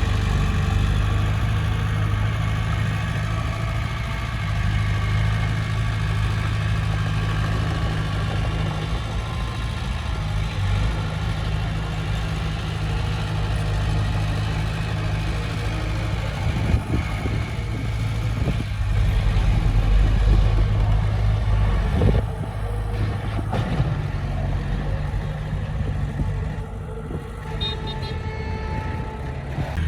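Heavy diesel engine of earthmoving machinery running steadily, with a few metallic knocks partway through.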